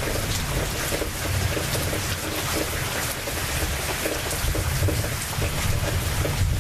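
Rainstorm: rain pouring steadily, with a low rumble underneath that swells in the second half.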